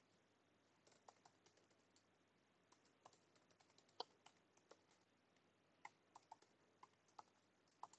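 Faint, irregular keystrokes on a computer keyboard: about a dozen separate key clicks spread unevenly, with the loudest about four seconds in.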